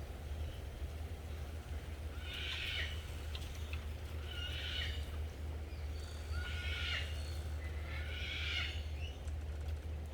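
An animal call, four times about two seconds apart, each call brief, over a steady low rumble.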